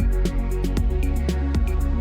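Background electronic music with a steady beat and a heavy bass line.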